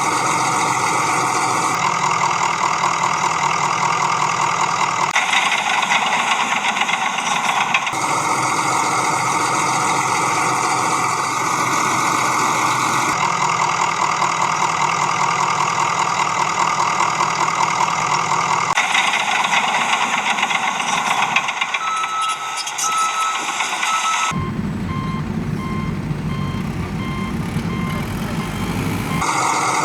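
Heavy vehicle engine running, cut together in blocks that change abruptly every few seconds, with a reversing beeper sounding in regular beeps and a deeper engine rumble near the end.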